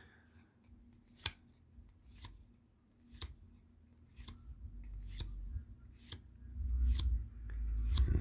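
A Magic: The Gathering booster pack being opened and handled: sharp snips or clicks about once a second, with low handling rumble near the end.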